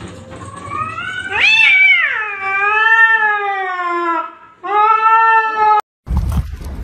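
A cat yowling: one long, drawn-out yowl that rises and then slowly falls, followed by a second, shorter yowl that cuts off suddenly.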